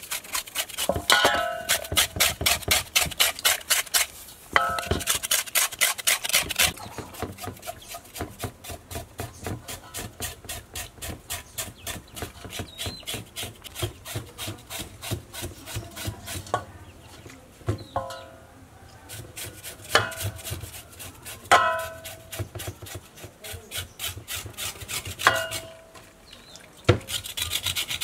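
A knife scraping the skin of a raw pig leg in quick repeated strokes during salt cleaning. A stainless steel basin rings briefly a few times as it is knocked.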